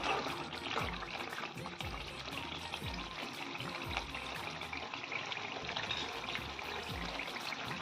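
Background music with a steady beat of about one low thump a second, over an even hiss of food cooking.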